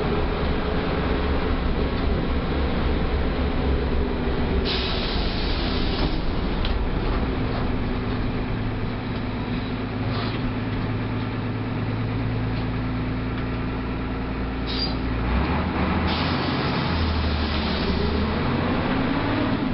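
Mercedes-Benz OF 1318 bus's six-cylinder diesel engine running on the move. Its pitch drops about 3–4 seconds in, holds steady and lower for several seconds, then climbs again near the end. Two short hisses come about 5 and 16 seconds in.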